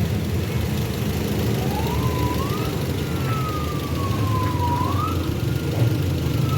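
Toyota Corolla GLI engine idling with a misfire, a steady low rumble from the shaking engine. From about a second and a half in, a siren-like wailing tone slowly rises and falls over it.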